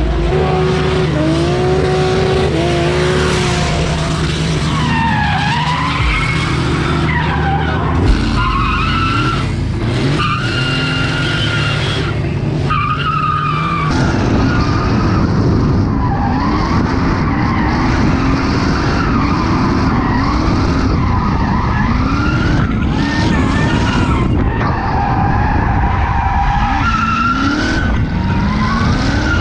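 Nissan Silvia S15 drift car drifting, its engine revving up and down over and over with tyres skidding. About halfway through, the engine sound jumps close and loud, as heard from a camera mounted on the car's tail.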